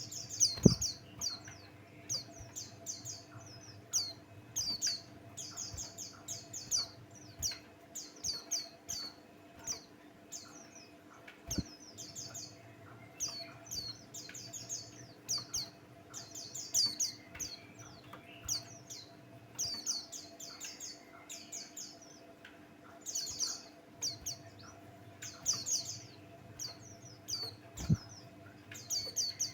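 White-eye (pleci) singing a rapid, twittering high-pitched song in short bursts every second or two. A faint steady hum runs underneath, and three short low thumps come about a second in, about halfway through, and near the end.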